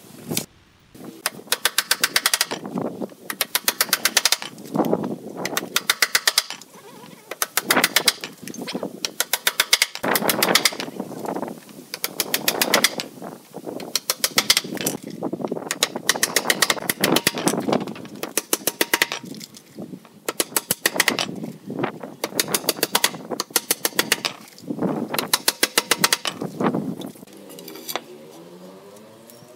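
Cordless impact driver driving screws into wooden boards: a rapid hammering rattle of about a second for each screw, repeated many times with short pauses between.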